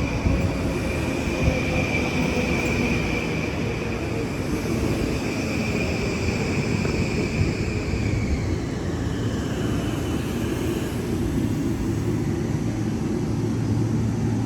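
Long Island Rail Road train passing: a steady rumble and rush of noise, with a high whine that fades out about eight seconds in.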